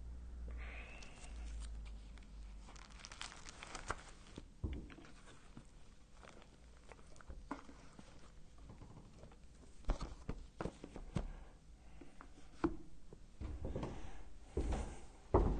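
Papers and a book being gathered up and handled at a wooden lectern: rustling, scattered clicks and knocks, with louder thumps near the end.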